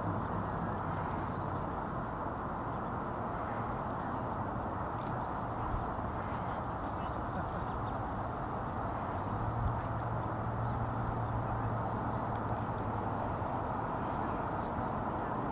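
Steady outdoor background noise, a constant hiss with a low hum under it, and a few faint, high, brief chirps now and then.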